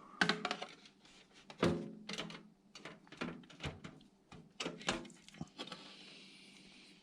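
Irregular light clicks and knocks of a thin metal motherboard I/O shield and PC case parts being handled and tried in place, with a soft hiss near the end.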